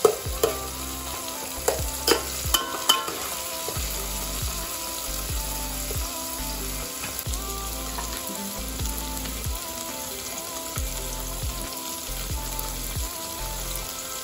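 Chopped tomato and onion frying in hot mustard oil in an aluminium pot, sizzling steadily. A steel spatula clinks and scrapes against the pot several times in the first three seconds, then the stirring stops.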